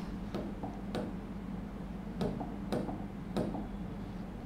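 Sharp taps on an interactive touchscreen board as its toolbar buttons are pressed: about five separate clicks at uneven intervals. A faint steady hum runs underneath.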